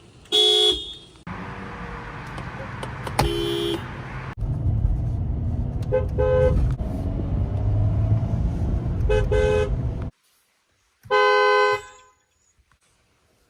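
A string of different car horns cut together: a two-tone honk near the start, another short honk about three seconds in, two quick double toots over rumbling road traffic, then a steady honk of about a second near the end.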